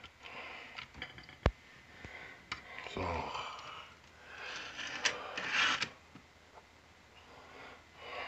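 Stainless steel lever-type french fry cutter being handled and opened: a few sharp metal clicks and clanks of its lever and parts, one with a dull thud, and stretches of rustling.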